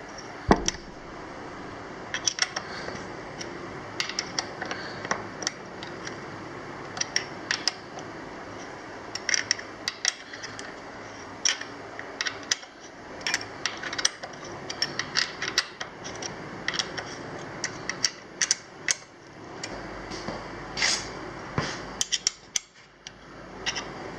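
Irregular sharp clicks, taps and small clatters of hand tools and parts being handled on a workbench, over a steady background hiss.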